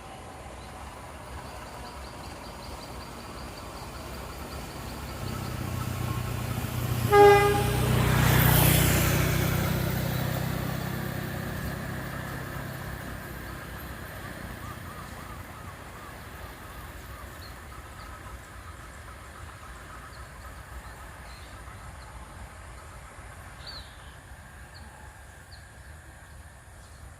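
A train passing by sounds one short horn toot about seven seconds in. Its rumble and rush swell as it goes by, then fade away over roughly ten seconds.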